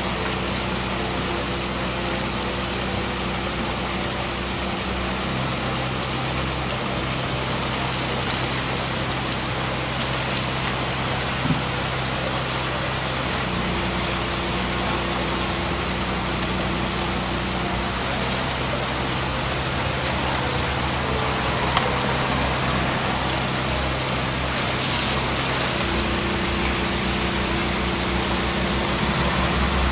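Engine-driven generator of an electrofishing unit running steadily, its hum stepping to a different note a few times, over the rush of shallow stream water.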